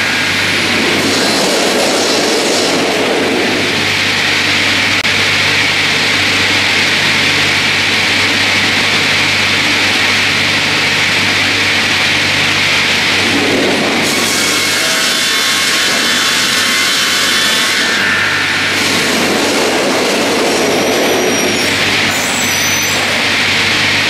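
The two circular saw blades of a StrojCAD D9 double-bladed automated sawmill running and ripping a spruce log, a continuous loud sawing sound over a steady low motor hum. The sawing sound changes character about 14 seconds in and again about 18 seconds in as the cut goes on.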